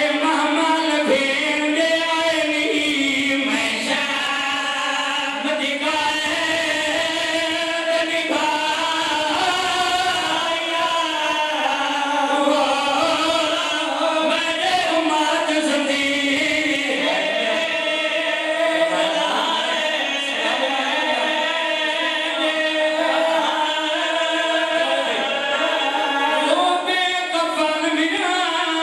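A group of men chanting a noha, a Shia mourning lament, in chorus with voices only: one lead voice at a microphone with the others joining in on long, held, wavering notes.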